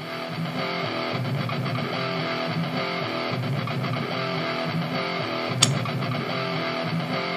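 Background music, a song with strummed guitar over a steady rhythm, with one sharp click about five and a half seconds in.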